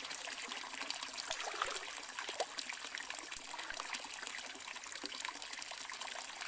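Hot spring water trickling and splashing steadily, a dense patter of small splashes.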